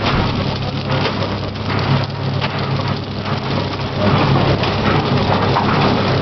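PFM Hurricane horizontal flow wrapper running while it wraps large cookies: a steady machine hum with a hiss over it, getting louder about four seconds in.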